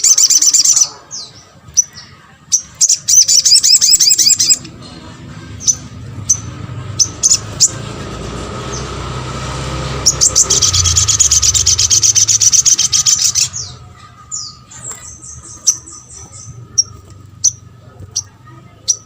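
Little spiderhunter (sogon) calling: loud bursts of very fast, high chattering trills a few seconds long, with single sharp chips between them. About halfway in, a low rushing noise swells for a few seconds and stops suddenly when the next trill begins.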